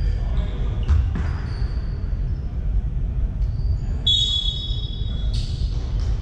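Basketball game play in a sports hall: a ball bouncing about a second in, and basketball shoes squeaking sharply on the court, loudest around four to five seconds in, over a steady low hall rumble.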